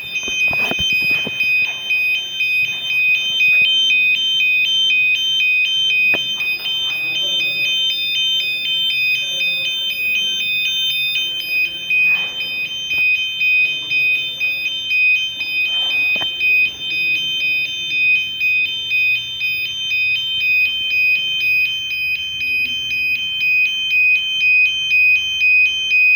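Electronic alarm sounder of an AM1000 fire alarm system sounding a loud, high-pitched pulsing tone; near the end the pulses settle into a regular beat of about two a second.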